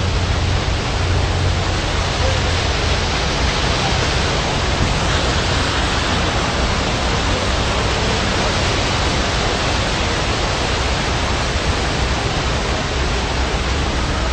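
Water of a large fountain cascading down over rocks, a loud steady rush.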